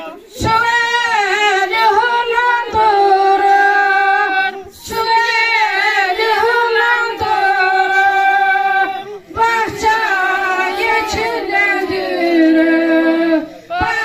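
A woman singing a Turkish folk song into a hand microphone, in three long, slow phrases with a brief breath between each.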